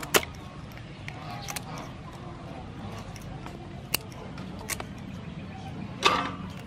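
Kitchen scissors snipping through the legs of raw blue crabs: several sharp crunching snips, the loudest just after the start and about six seconds in.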